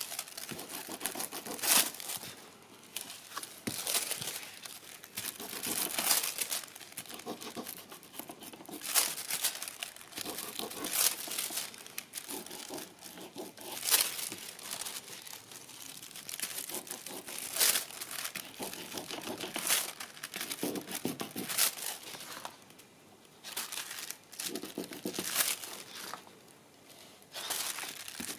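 A sheet of silver transfer foil crinkling and crackling as it is pressed and rubbed onto the paper by hand and peeled away, in irregular bursts with sharp crackles every second or two.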